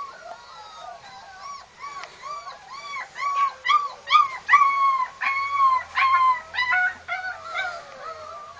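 Dogs whining and yelping excitedly: a quick run of high, rising-and-falling cries, about two or three a second, sometimes overlapping. They are loudest in the middle and fade near the end.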